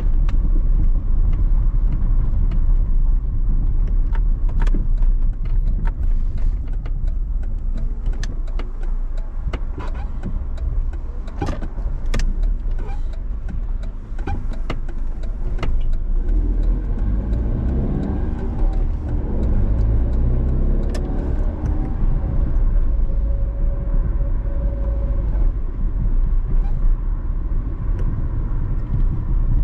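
Car driving along a road: a steady low rumble of road and engine noise with scattered ticks and knocks. A pitched sound rises and then falls in the middle.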